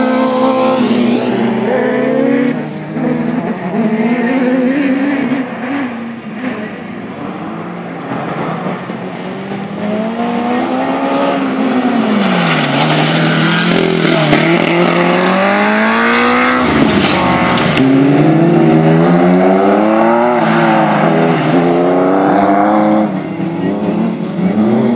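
Several autocross buggy engines racing on a dirt track, each revving up and dropping back again and again, with more than one car heard at once. The sound dips a few seconds in, then grows louder again.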